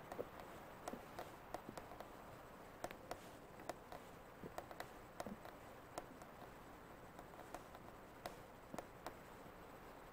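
Very quiet steady hiss with light, sharp clicks and ticks scattered irregularly, about two a second.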